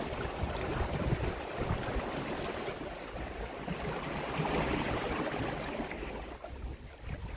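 Wind buffeting the microphone in gusts over the wash of small sea waves against shore rocks, easing briefly near the end.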